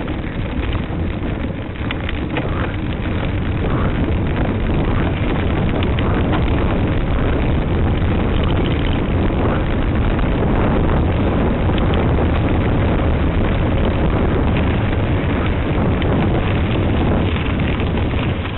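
Wind rushing over the microphone of a camera carried on a cyclocross bike, mixed with the bike and camera rattling and shaking as they ride over cobblestones.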